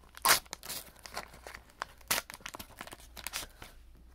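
Pokémon card pack wrapper crinkling and tearing as it is pulled open by hand, a string of short crackles loudest about a third of a second in and again about two seconds in, dying away near the end.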